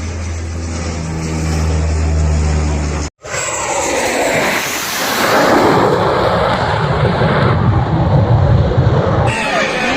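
Aircraft engine noise from a low-flying airplane. A steady low drone is cut off abruptly about three seconds in, and is followed by louder, rushing engine noise.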